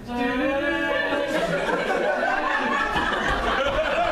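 A performer's voice holds a long note for about the first second, then audience laughter and clapping swell up and fill the rest.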